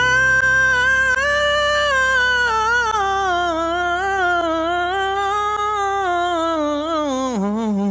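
A man's voice holding one long, high sung note, its pitch sagging slowly downward; near the end it wavers, then drops lower and is held.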